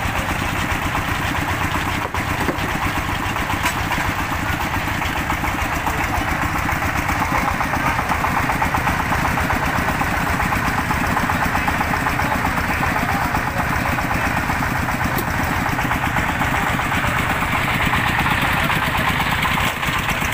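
Single-cylinder diesel engine of a công nông, a Vietnamese two-wheel tractor hauling a trailer, running steadily with a fast, even firing beat.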